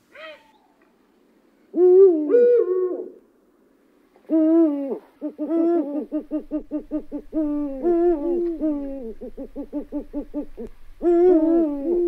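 Eurasian eagle-owl calling: hoots that fall in pitch, with a run of quick pulsed notes at about four a second through the middle, then another hoot near the end.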